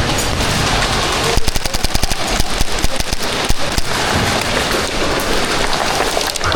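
Airsoft electric guns firing rapid full-auto strings, with a dense patter of BB impacts; the shots come thickest from about a second and a half in for some two seconds.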